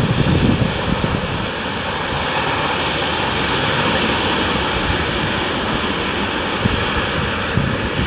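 Electric-locomotive-hauled passenger train rolling away along the track: a steady rumble and rush of wheels on rails. Gusts of wind hit the microphone at the start and again near the end.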